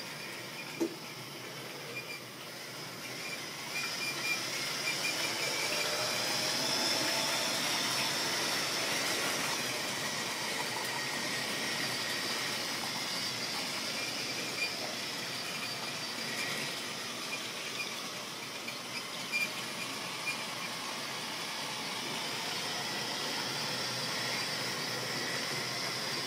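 Model railway train running along sectional track, its small electric motor whining, with wheels rattling over the rails. It grows louder a few seconds in as the train moves, and a few sharp clicks sound over it.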